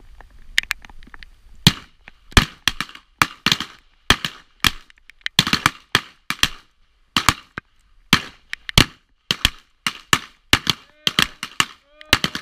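Revolvers firing in a field-shooting stage: a fast, irregular string of shots starting about a second and a half in, too many and too close together for one gun, so several shooters are firing along the line at once.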